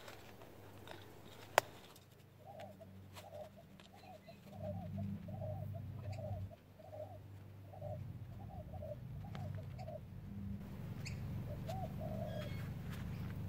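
A dove cooing: a run of about a dozen short, evenly spaced hoots, with one more short call near the end. A sharp click comes just before the cooing starts, and a low rumble runs underneath.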